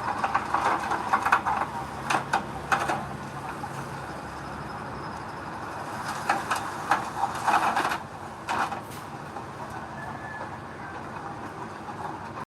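Heavy earthmoving machinery working, with a steady engine noise and irregular metallic clanks and knocks that come in clusters near the start and again about halfway through.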